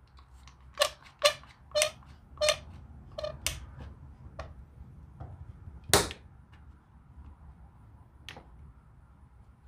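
A series of sharp metallic clinks and knocks, each with a short ring: about six in the first four seconds, the loudest about six seconds in, and one more near the end.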